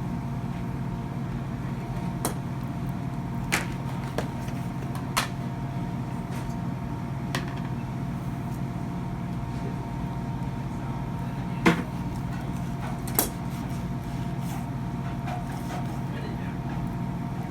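A kitchen knife knocking and clicking on a cutting board now and then while a tuna is being cut, over a steady electrical hum.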